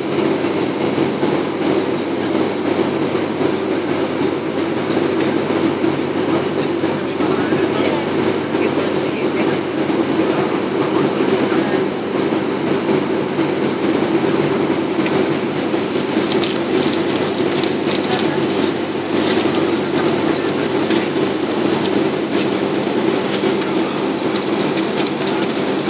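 Propeller-driven airliner's engine and propeller noise heard inside the cabin: a steady loud drone with a thin, high, steady whine over it.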